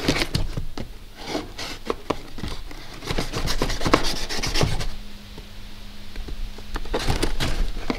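A small blade cutting through packing tape and scraping along a cardboard box, a run of short scrapes and clicks that is busiest a few seconds in, with the cardboard flaps pulled open.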